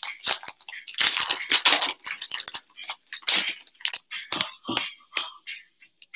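Foil trading-card pack being torn open and crinkled, then the stack of cards inside being flicked through one by one with short, sharp clicks.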